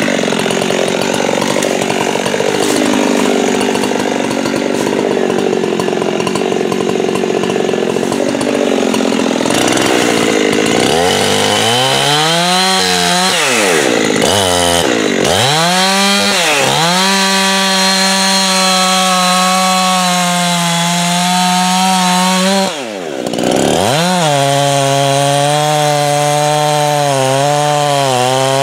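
Two-stroke chainsaw cutting into a tree trunk near its base, running under load for about the first ten seconds. After that the engine speed repeatedly dips and climbs back as the saw is worked in the cut, falling almost to idle once near the end before revving up again.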